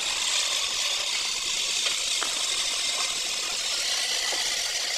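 Steady, high-pitched machine-like hiss with a few faint metal clicks, which cuts off suddenly at the end.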